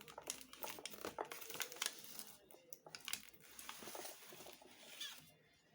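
Plastic packaging crinkling and rustling as it is handled, with many small sharp clicks. It quietens about five seconds in.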